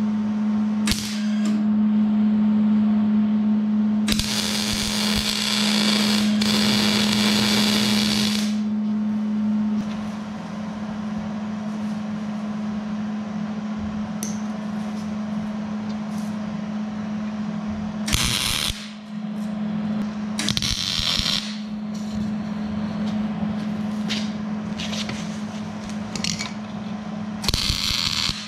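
Wire-feed welder arc crackling and sizzling in bursts: one run of about four seconds, then a few short tack-length bursts later on. A steady low hum runs underneath.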